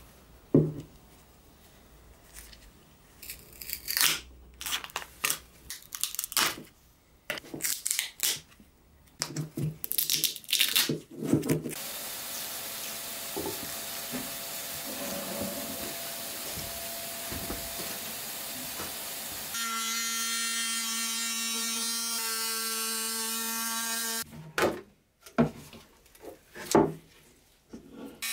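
Knocks and clatter of parts and tools being handled on a wooden workbench, then a steady rushing of air for about seven seconds, fitting the vacuum that pulls the heated plastic sheet over the windshield mould. About twenty seconds in, a rotary tool with a cut-off disc starts a steady buzzing whine as it trims the vacuum-formed plastic windshield, broken by a few sharp knocks near the end.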